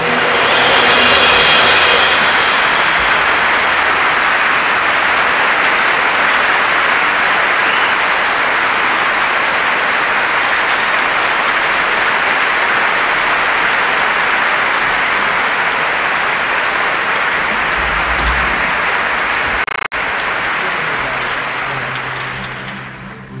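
Audience applauding: sustained, steady clapping that dies away near the end.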